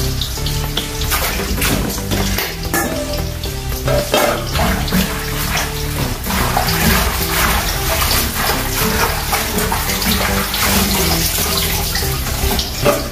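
Water running from a kitchen tap into the sink and splashing, over background music.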